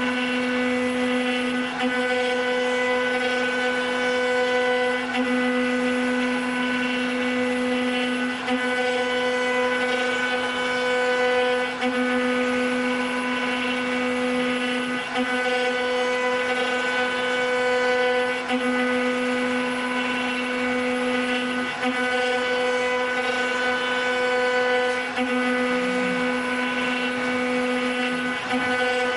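Spindles of a multi-spindle four-axis CNC wood router running with a steady, loud, high machine hum, its lowest tone dipping briefly about every three seconds.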